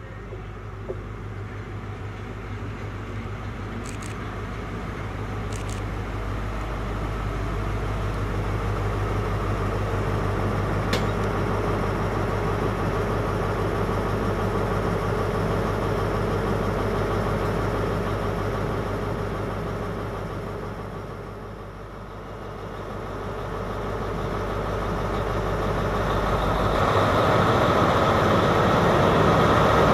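Class 43 HST power car's MTU diesel engine running as the train rolls slowly along the platform, a steady low hum that builds, eases off briefly past the middle and grows loudest near the end as the power car comes alongside.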